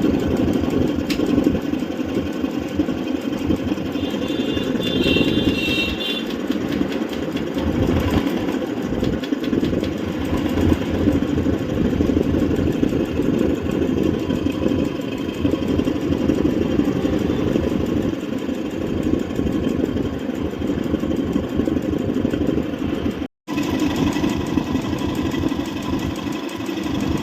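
Royal Enfield unit-construction single-cylinder engine running steadily at idle with an abnormal engine noise, the fault being diagnosed. The sound cuts out for an instant about 23 seconds in.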